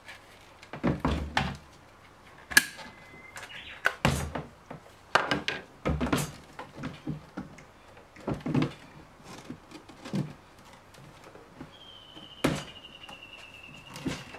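Plastic parts knocking and thunking in irregular single hits as they are handled and fitted into the filler opening of a 50-litre black polyethylene tank. A thin high tone that falls slightly starts about twelve seconds in.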